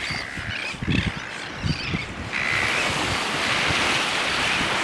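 Sea waves washing, with wind buffeting the microphone and irregular low splashes.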